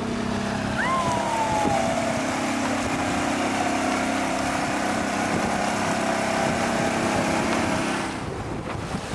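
Small outboard motor on an inflatable dinghy running steadily as it passes close by, mixed with wind on the microphone. A brief falling whistle sounds about a second in, and the engine sound drops away near the end.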